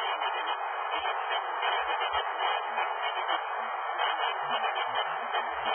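A large stadium crowd making a steady roar, heard through a television broadcast.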